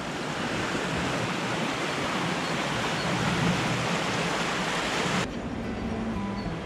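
A fast, shallow mountain river rushing over stones and gravel, a steady full roar of water that swells in at the start. About five seconds in it cuts off and quiet background music takes over.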